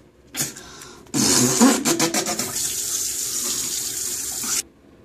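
Bathroom sink faucet running full into a soapy basin for about three and a half seconds, then shut off suddenly.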